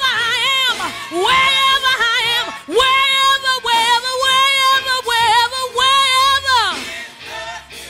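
A woman singing gospel solo in a high voice: long held notes with a wide vibrato and quick melismatic runs, in several phrases broken by short breaths, the last one gliding down and fading near the end.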